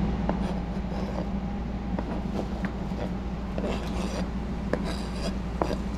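Knife blade scraping diced cucumber off a plastic cutting board into a plastic bowl: small ticks and slides of the pieces dropping, with a few louder scrapes about four to five seconds in, over a steady low hum.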